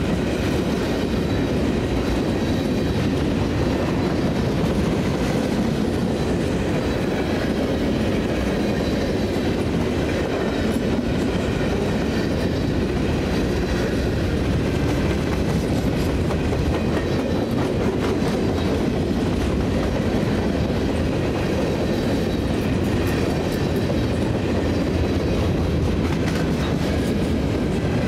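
Freight cars of a CSX freight train rolling past close by: a steady rumble of steel wheels on rail with clicks and clatter from the wheels over the track.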